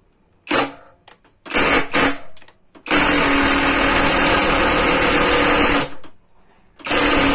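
Topshark 18 V cordless impact driver running in reverse, backing a long screw out of a block of wood: a few short bursts, then a steady run of about three seconds, then another short burst near the end.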